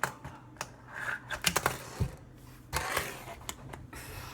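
Fingerboard tricks on a cardboard skatepark: a run of sharp, irregular clacks as the board is popped and lands, with a short stretch of rolling or sliding about three seconds in.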